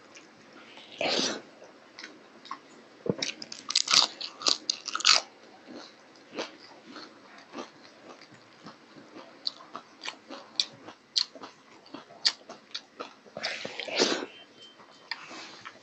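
Close-miked eating by hand: fingers squishing and mixing rice and food on a steel plate, with many short wet clicks of the mouth and chewing. Near the end a handful of food goes into the mouth with a louder burst of eating noise.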